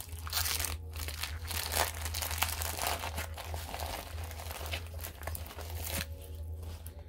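Clear plastic packaging and the paper-covered canvas of a diamond painting kit crinkling and rustling as they are handled and rolled up, dying away about six seconds in. A steady low hum runs underneath.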